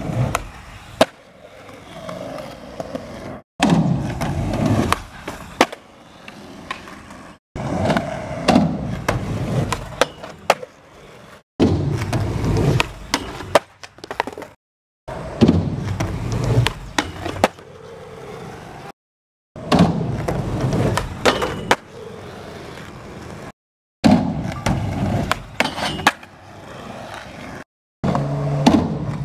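Skateboard wheels rolling on concrete, with the sharp clacks of tail pops, landings and board impacts on ledges and rails, in a string of short clips split by brief silences. In one clip the skater slams and the board clatters away.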